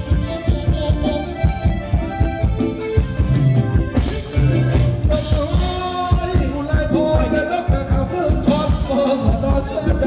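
Live band playing upbeat Thai dance music for a rumwong circle dance, with a steady drum beat and a singer.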